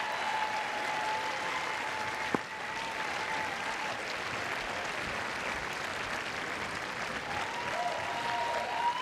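Tennis crowd applauding steadily from the stands, with one sharp knock a little over two seconds in.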